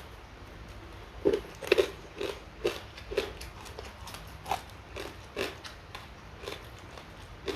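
A person chewing crunchy food close to the microphone. After about a second, a string of short crunches comes roughly twice a second, the loudest just after the start.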